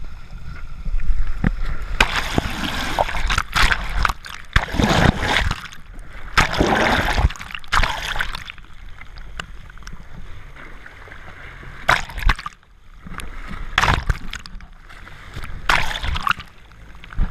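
Water splashing and sloshing in a series of irregular bursts.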